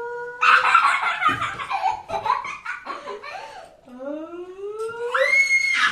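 Excited laughter and squealing during rough play with a young child: a burst of laughter about half a second in, then a voice gliding upward into a high, held shriek near the end.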